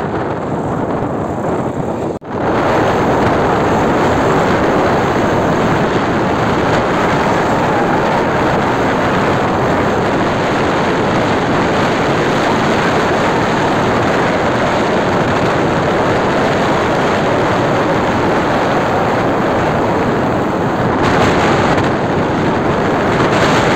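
Steady rush of wind on the microphone and road noise from a moving motorcycle, with a brief break about two seconds in.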